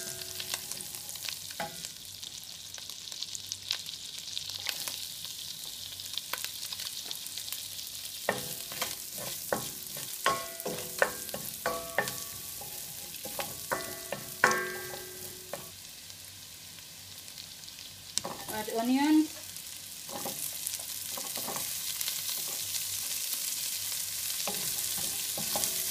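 Chopped garlic sizzling in butter and oil in a stainless steel pan, stirred with a wooden spoon that knocks against the pan several times, each knock ringing briefly. A short rising tone comes about three quarters of the way through, and the sizzle grows louder in the last few seconds as the chopped onions go in.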